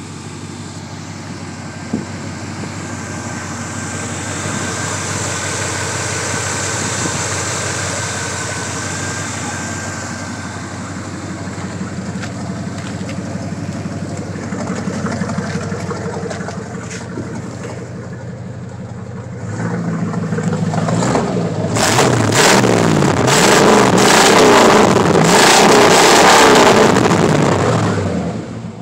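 The 454 big-block V8 of a 1983 GMC K3500, breathing through Cherry Bomb mufflers, idles with a few mild swells. From about two-thirds of the way in it is revved repeatedly and loudly, the pitch rising and falling with each rev, then drops back to idle at the end.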